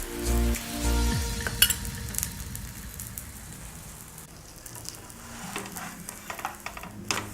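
A holige flatbread frying in oil on a hot tava, sizzling steadily, with scattered clicks and scrapes of a spatula against the pan.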